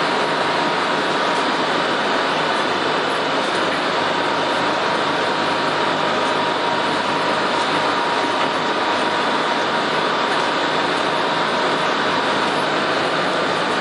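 Industrial processing machinery running with a steady mechanical noise and a faint whine mixed in.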